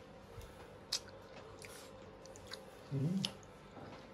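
Someone tasting fresh raspberry jam: a few soft mouth smacks and clicks, and a short rising "mm" about three seconds in.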